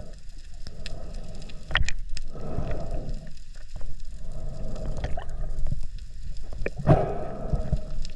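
Underwater ambience picked up by a submerged camera: a steady low rumble of moving water with rushing surges every couple of seconds, as the swimmer moves through the water, and scattered sharp clicks.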